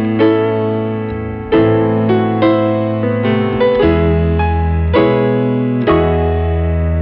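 Background piano music: slow chords struck about once a second over held bass notes.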